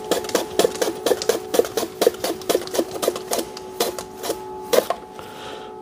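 A potato being sliced thin on a mandoline slicer, pushed back and forth over the blade in a quick even rhythm of about four clicking strokes a second, with a steady hum underneath.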